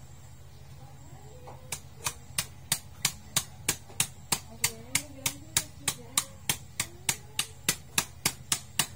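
Steady chopping on a cutting board, sharp strikes about three a second that begin about two seconds in.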